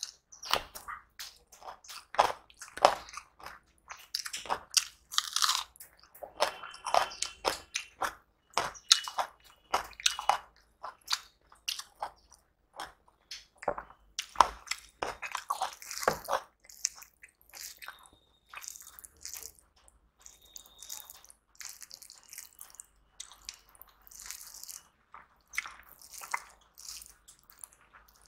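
A person chewing and crunching mouthfuls of turmeric rice and fried eggplant eaten by hand, with sharp wet mouth clicks, close to the microphone. Chewing is busiest through the first half and softer after about sixteen seconds.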